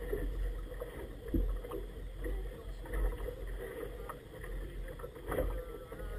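Wind rumbling on the microphone of a small boat's deck, with choppy water lapping and splashing against its inflatable tube in uneven surges.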